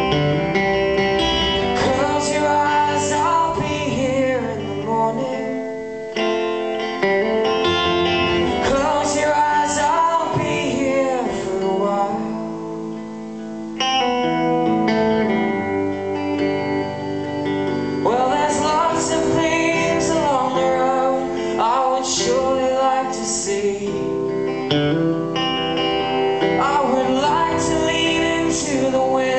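Live music: a man playing electric guitar, with wordless or unclear singing over it.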